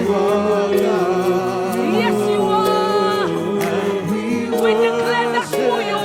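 Church worship team singing, several voices holding long, wavering notes.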